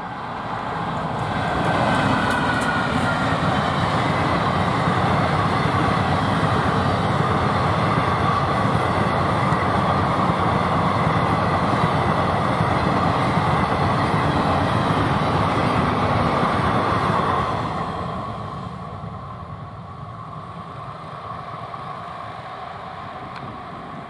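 A passenger train hauled by a WAP-4 electric locomotive passes close by, its coaches rattling steadily over the rails. The noise swells over the first couple of seconds, holds loud and even, then drops away sharply about seventeen seconds in as the end of the train goes by.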